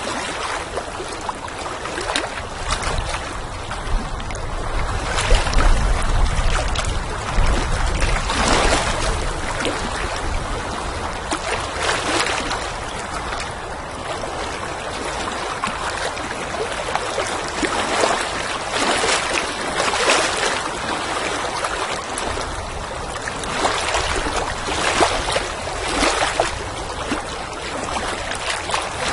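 Water lapping and splashing in irregular small waves, with wind rumbling on and off underneath.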